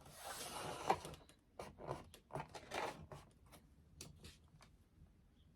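Craft materials being handled at a work surface: a scraping rustle with a sharp knock about a second in, then a run of light clicks and rustles that die away.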